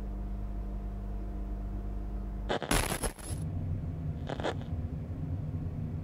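Room tone of empty interiors: a steady low hum with a few fixed tones, cut about two and a half seconds in by a short burst of static, after which a different room's low, uneven rumble continues.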